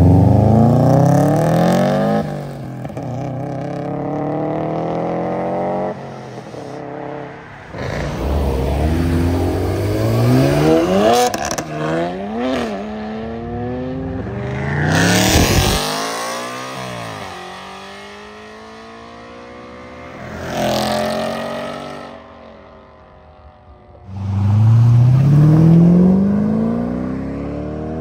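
Modified cars pulling away one after another, each engine revving up in rising pitch as it accelerates past. The loudest pulls come at the start and near the end, with quieter stretches of idling and passing in between.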